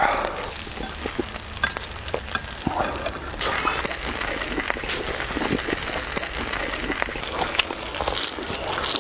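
Slices of pork belly sizzling on a round griddle pan: a steady hiss with many small pops and crackles.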